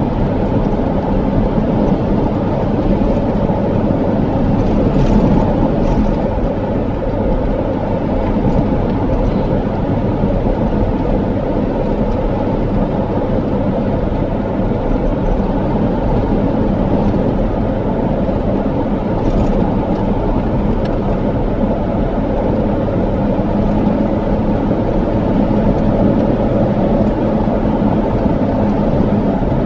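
Steady road noise of a car driving at speed, heard from inside the cabin: tyre roar on the pavement and the engine's low hum, holding even throughout.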